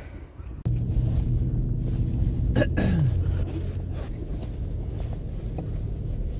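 A car running along the road: a steady low engine and road hum that starts abruptly just under a second in. About two and a half seconds in, a short tone slides downward.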